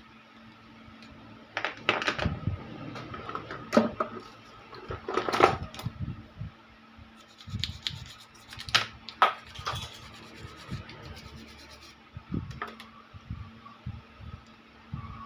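Irregular clicks, knocks and scraping of small hard objects being handled on a work surface while a wireless microphone's cells are taken out for testing, over a faint steady hum.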